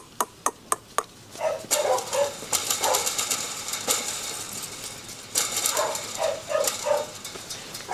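Puppies yapping in short, high barks, in a cluster about two seconds in and another from about five seconds. A quick run of sharp clicks comes in the first second.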